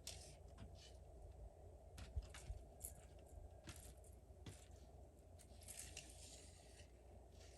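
Faint, scattered clicks and taps with a brief rustle about six seconds in: small handling noises from work on the wall framing, over a steady low hum.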